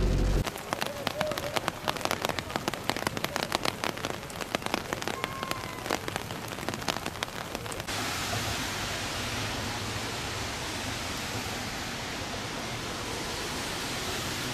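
Heavy rain: first a dense, irregular patter of raindrops striking a car's windshield and body. About halfway through this gives way abruptly to the steady hiss of a downpour falling on a paved street.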